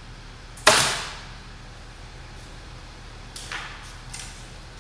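Pneumatic upholstery stapler firing once about a second in: a sharp crack with a short hiss of exhaust air that dies away quickly. Two fainter, shorter bursts follow near the end.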